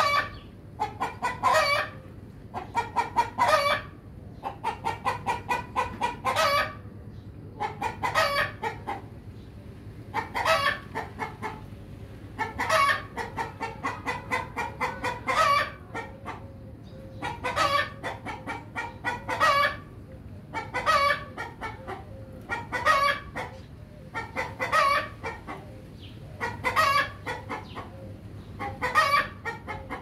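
Rooster clucking in repeated bursts of rapid calls, a burst about every two seconds, over a steady low hum.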